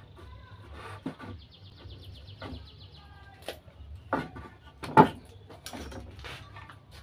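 Wooden boards knocking and clattering as they are lifted and set in place, with two louder knocks around four and five seconds in.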